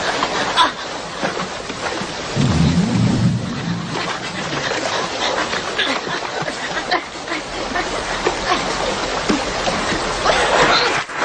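Fast-flowing river water rushing, with heavy splashing from a bear wading and bounding through it. A brief low rumble comes about two and a half seconds in.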